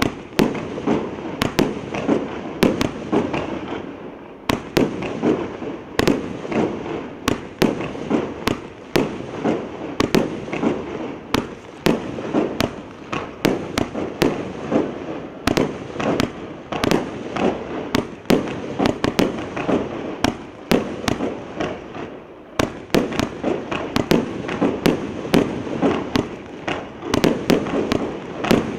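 Primed Pyrotechnics PR208 Heavy Hitter firework cake firing a continuous barrage, a steady run of sharp bangs roughly two a second as shell after shell launches and bursts, with no pause.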